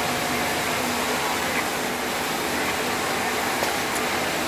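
Steady whir and hiss of industrial machinery running, with a faint low hum underneath and no change in level.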